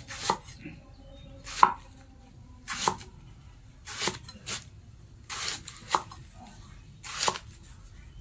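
A handmade axe blade made from a tractor's plough disc chopping through a banana plant stem into rounds, cutting down onto a wooden board: about seven chopping strokes, roughly one a second.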